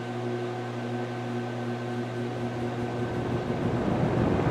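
Old metal-bladed electric fan with a Fasco motor starting up on high: a steady electric motor hum that fades after about three seconds, while the rush of air from the blade builds as it comes up to speed.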